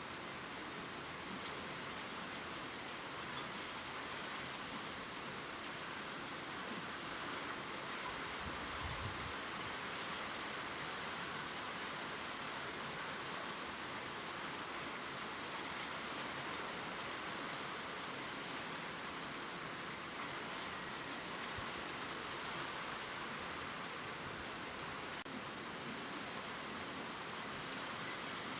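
Gentle steady rain falling on leaves, an even hiss with faint scattered drop ticks, and one brief low thump about nine seconds in.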